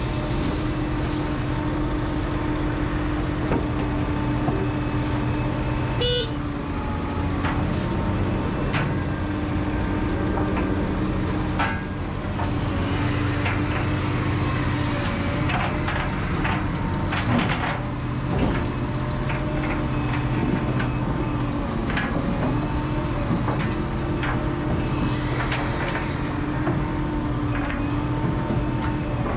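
Liebherr R976 crawler excavator's diesel engine and hydraulics running with a steady hum, as the bucket empties soil into a tipper truck and swings back. Short clanks and knocks from the bucket and its linkage come throughout, most of them toward the middle.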